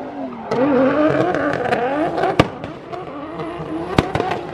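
Drift car's engine revving up and down during a run, with sharp cracks, the loudest about two and a half and four seconds in.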